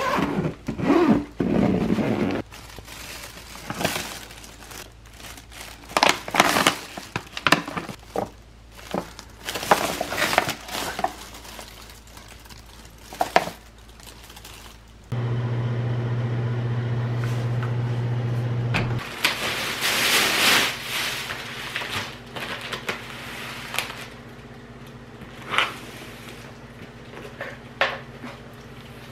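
Plastic bags and packaging rustling and crinkling as items are handled and unpacked, with irregular knocks of things being set down. A steady low hum runs for about four seconds midway.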